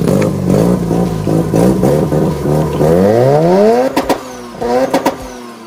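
Mazda RX-7 FC's two-rotor 13B rotary engine running with short throttle blips, then revved up in one long rising sweep about three seconds in. Sharp cracks come near the top of the rev and again about a second later as the revs drop away.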